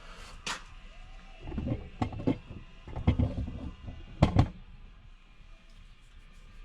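A run of knocks and clunks of tools and workpieces being handled at a workbench vise, the heaviest about three and four seconds in, with a few light clicks before them.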